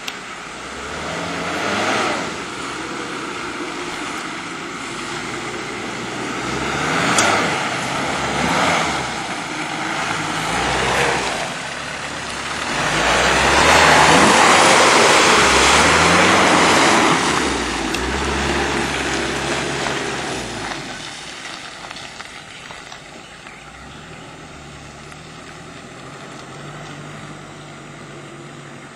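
Land Rover's engine working over a rutted dirt track, the revs rising and falling. It is loudest as the vehicle passes close about halfway through, then fades as it drives away.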